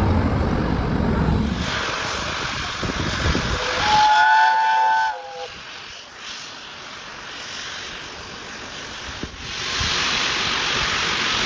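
Steam locomotive whistle sounding once, one chord-like blast of just over a second about four seconds in, over steady rushing noise and hiss from the moving train.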